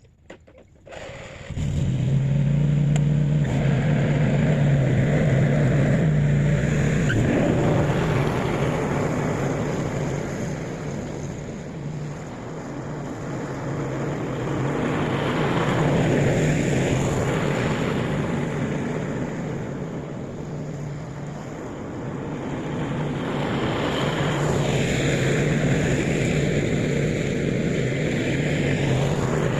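Residential riding lawn mower's small engine running steadily, coming in abruptly about a second and a half in, its sound swelling and fading.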